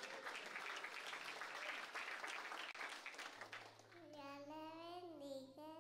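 A congregation applauding, an even patter of many hands for about three seconds. Then a young child's voice comes over the microphone in long, drawn-out sounds.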